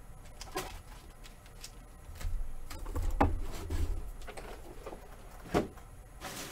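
Cardboard product boxes being handled and moved on a table: a few sharp taps and knocks with soft rubbing and shuffling between, the loudest knock about five and a half seconds in.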